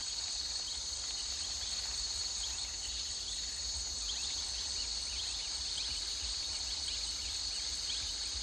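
Steady, high-pitched chorus of insects chirring, with faint scattered chirps over a low background hum.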